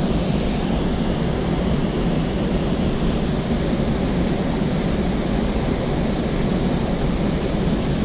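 Waterfall rushing: a steady, even noise of falling water with no let-up.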